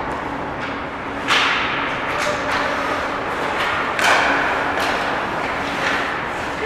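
Ice hockey play heard at the glass: skate blades scraping and carving the ice, with clacks of sticks and puck. There are two louder sharp hits, about a second in and about four seconds in, each trailing off in a brief hiss, over a steady hum.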